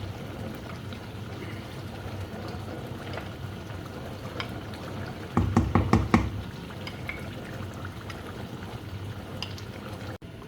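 Chicken cooking in a karahi, a steady low sizzle, as cream is added and stirred in; a quick run of spoon knocks against the pan about halfway through.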